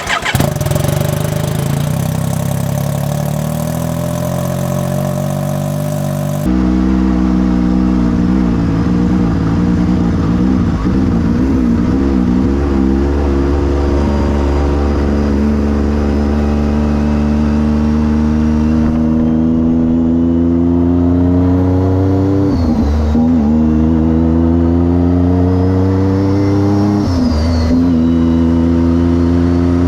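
Vehicle engine pulling under steady acceleration, its pitch climbing slowly. Twice in the latter part the pitch drops briefly and climbs again.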